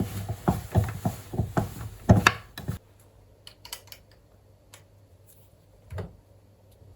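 Handling noises: a quick run of light knocks and clicks of hard objects being moved, then near quiet with a few faint ticks and one more knock about six seconds in.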